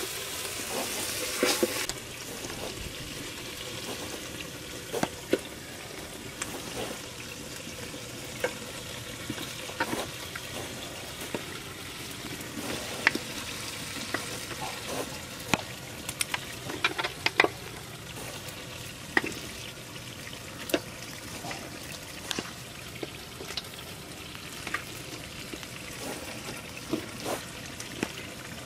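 Meat frying in spiced oil in a metal pot over a wood fire, sizzling steadily, a little louder in the first two seconds. A long metal spoon stirring and scraping gives scattered sharp clinks against the pot, several close together about halfway through.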